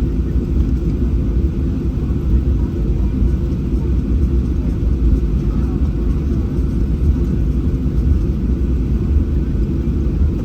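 Cabin noise of a Boeing 737-800 under takeoff power, heard from a seat near the front: its CFM56-7B engines and the airflow make a loud, steady, low rumble.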